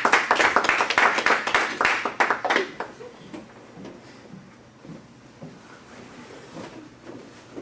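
A small group clapping, the claps thinning out and stopping about two and a half seconds in, followed by quiet room noise.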